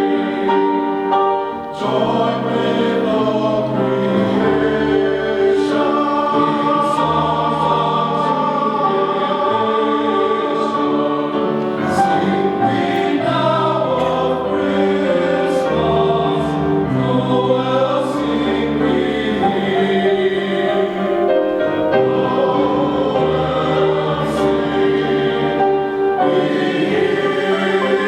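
Men's chorus singing in harmony, holding sustained chords, with a brief breath-pause about a second and a half in.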